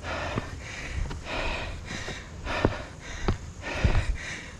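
A man breathing hard and fast from running up a steep hill, about one and a half heavy, gasping breaths a second, his lungs burning from the effort. A few short knocks sound between the breaths in the second half.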